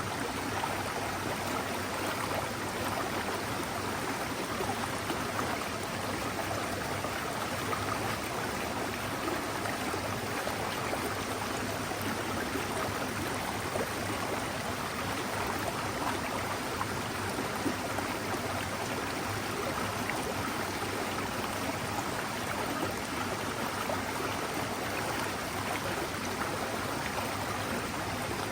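A mountain stream running over rocks: a steady, even rush of water.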